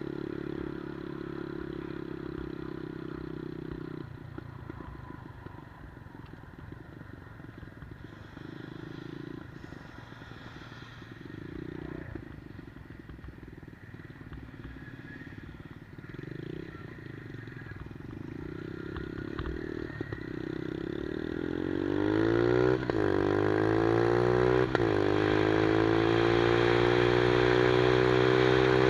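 Single-cylinder engine of a 110cc Monkey-style mini motorcycle running steadily, then at low revs for a long stretch. About three-quarters of the way through it revs up hard, its pitch climbing, with two brief dips at gear changes, and it ends loud at high revs.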